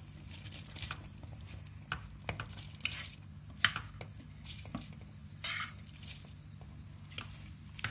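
Scattered clinks and knocks of a steel bowl against the rim of an aluminium cooking pot as soaked basmati rice is tipped into boiling gravy, the loudest knock a little past halfway. A steady low hum runs underneath.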